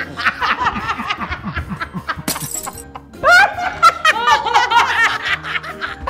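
Several people laughing hard, louder from about three seconds in, over background music, with a short hissing burst about two seconds in.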